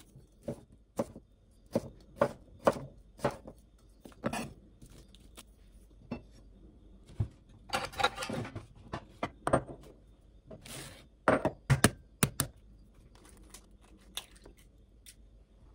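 Knife chopping on a cutting board, about two strikes a second for the first few seconds, then irregular knocks and kitchen clatter.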